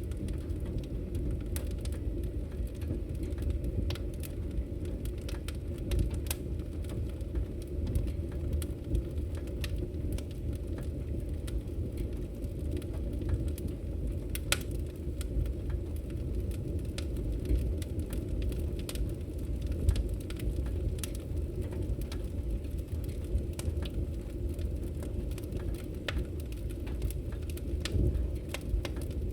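Wood fire burning in a fireplace: a steady low rumble of the flames with irregular crackles and occasional louder pops.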